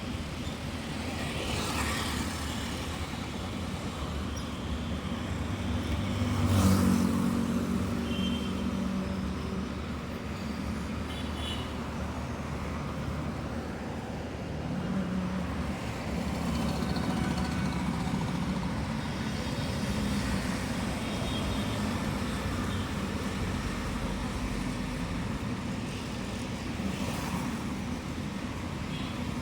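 Road traffic: vehicle engines running steadily, with one vehicle passing close and louder about six or seven seconds in.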